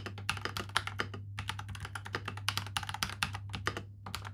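Fast touch-typing on a NuPhy Halo75 mechanical keyboard with Night Breeze switches: a rapid run of key clacks, with two short pauses.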